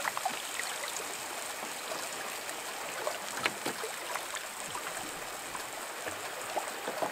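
Lake water lapping and trickling against a rocky shoreline, with a few faint scattered clicks.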